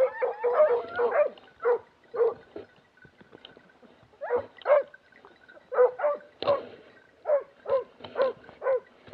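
Hunting dog barking in short, high yelps. A quick run comes in the first second, then single barks about every half second, with a pause of about a second and a half in the middle.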